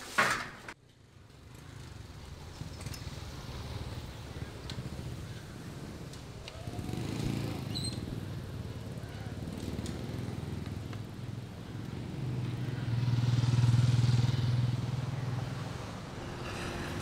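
A sharp bang right at the start, then a motorcycle engine running with a low steady hum. The engine swells louder for a few seconds past the middle and eases off again near the end.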